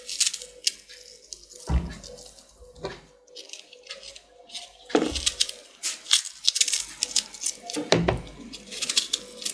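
Water splashing and dripping as onion pieces are washed, with three heavier knocks about three seconds apart.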